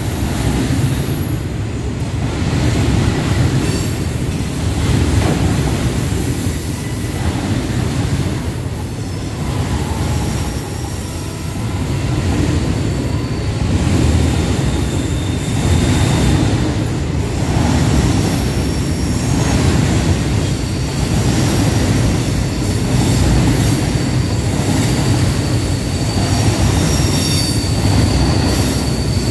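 Open box freight wagons rolling past on the rails with a steady rumble of wheels, recurring clacks as the wheels cross rail joints, and a thin high wheel squeal at times.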